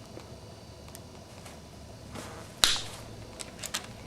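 Ezepull fencing tool crimping an aluminium sleeve joint onto 2.5 mm high-tensile wire: one sharp metallic snap about two and a half seconds in, then a few lighter clicks.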